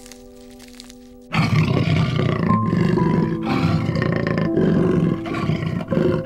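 Background music holding a steady chord, then a little over a second in a loud, rough animal call starts abruptly and carries on over the music.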